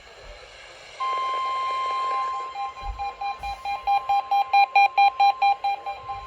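NOAA Weather Radio's 1050 Hz warning alarm tone, a steady high tone starting about a second in, sounding for a routine weekly test. From about two and a half seconds a weather radio receiver's alert beeps rapidly over it, about five beeps a second, growing louder and then fading.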